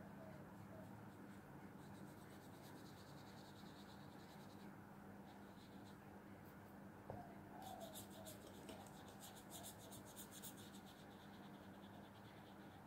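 Faint scratching of a paintbrush stroking over textured watercolour paper, in two spells of quick strokes, the second, about eight seconds in, the stronger. A low steady hum runs underneath.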